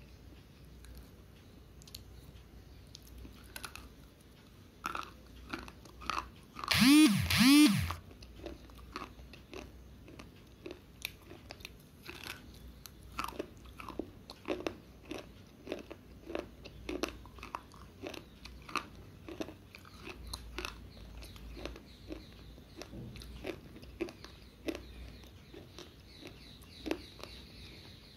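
Slate pencils bitten and chewed close to the microphone: many short, dry crunches and clicks. About seven seconds in, two loud squeals that rise and fall in pitch cut through, louder than the chewing.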